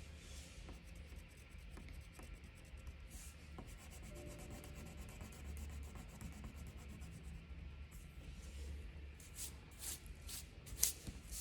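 Drawing strokes on paper, faint scratching and rubbing, with a run of quicker, sharper strokes near the end, over faint background music.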